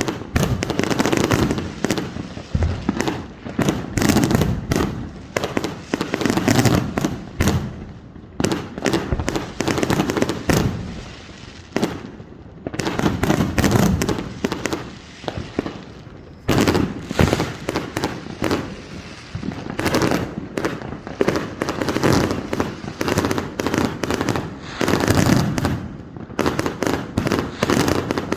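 Fireworks going off in a rapid, near-continuous barrage of bangs and crackles, with a few brief lulls.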